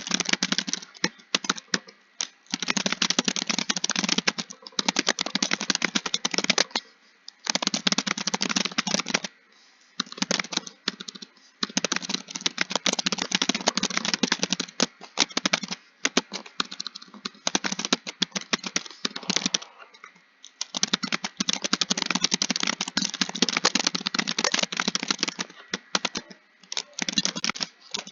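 Fast typing on a computer keyboard: dense runs of keystrokes broken by a few short pauses.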